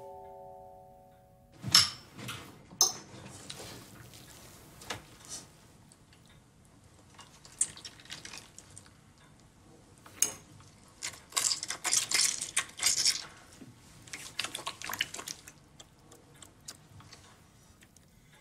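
Spoons and a ladle clinking against an enamel pot and soup plates as soup is served and eaten, in scattered sharp clinks with a busier stretch of clatter and liquid sounds a little past the middle.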